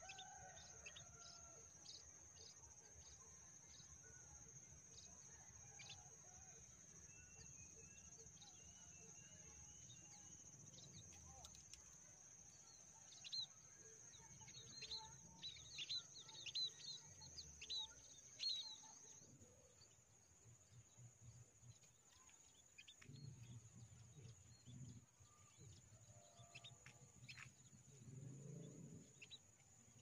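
Small birds chirping in short, thin, high calls, scattered at first and then coming thick and fast in a cluster about halfway through, over a steady high-pitched insect drone.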